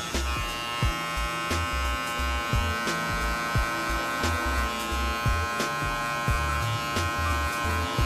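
Electric hair clipper running with a steady hum as it cuts the short hair around the ear for a fade. Background music with a steady low beat plays underneath.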